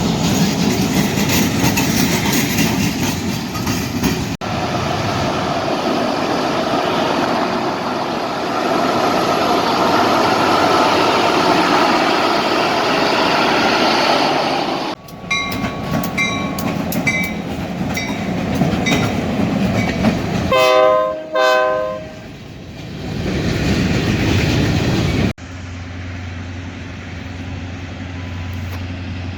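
Trains passing with steady rail and wheel noise across several short clips. Partway through, a bell rings at an even pace, about one and a half strokes a second, followed by two short, loud blasts of a locomotive horn. Near the end a quieter steady low hum is heard.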